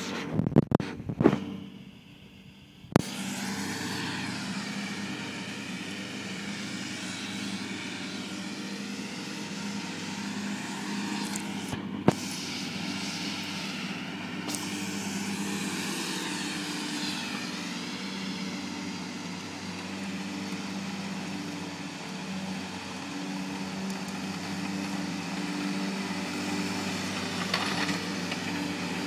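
A few loud knocks in the first second or so, then a ride-on mowing tractor's engine and cutting deck running steadily as it mows grass, with one sharp click about twelve seconds in.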